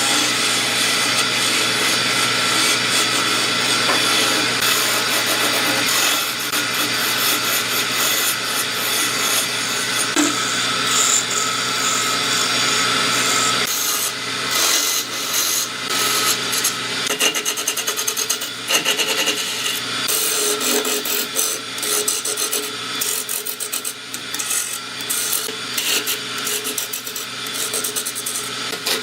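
A power tool working wood, running steadily throughout, with the noise growing more uneven in the second half.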